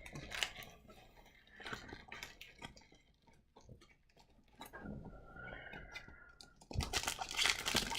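Soft clicks and rustles of trading cards being handled and flipped through. About three-quarters of the way in, a louder crinkling handling noise starts, as a wrapper is picked up for the next pack.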